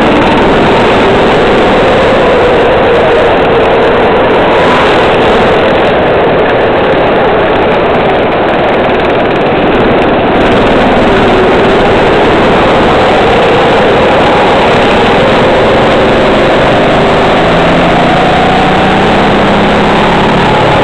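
Racing kart engine heard loud from on board at speed, its revs rising and falling through the corners.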